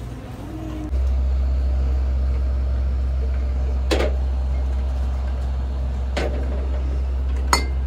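A steady low rumble, with light sharp knocks of ceramic vases being picked up and set against each other and the metal shelf: one about four seconds in, another two seconds later, and a third near the end.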